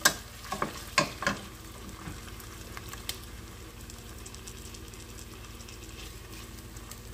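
Ground-chicken balls and onions sizzling in oil in a stainless steel skillet as they brown, with a wooden spatula knocking against the pan four times in the first second and a half, then a steady sizzle.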